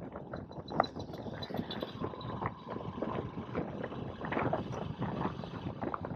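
Yamaha motorcycle riding through traffic, heard through an action camera's microphone: wind buffeting the mic over steady engine and road noise.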